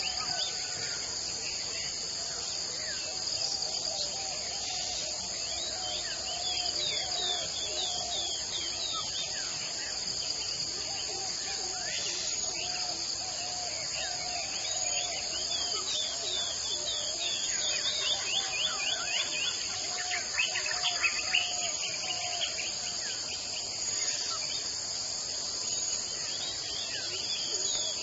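Crickets and other night insects chirping in a steady, high shrill trill, with many quick falling chirps over it that grow busier about two-thirds of the way through.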